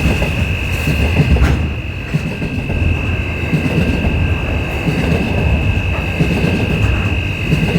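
Train rumbling along the track, with a steady high-pitched whine held throughout and a sharp click or two.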